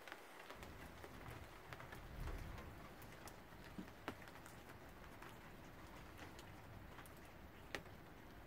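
Near silence: faint background hiss with scattered light ticks and a brief low rumble about two seconds in.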